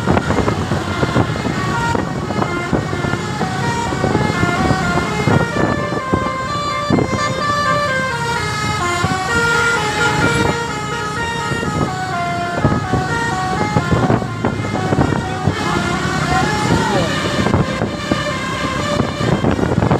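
Basuri 'telolet' multi-tone bus horn playing quick tunes of short stepped notes, again and again, over the noise of a running bus and traffic.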